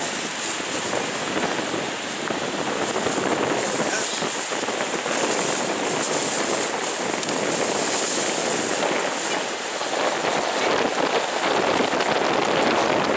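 Steady wind buffeting the microphone over breaking surf on an open beach.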